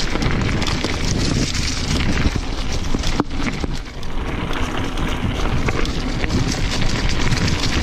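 Mountain bike running fast down a rough dirt trail, heard from an on-bike action camera: wind buffeting the microphone over tyre noise and a steady clatter of the bike jolting over bumps, easing briefly about three seconds in.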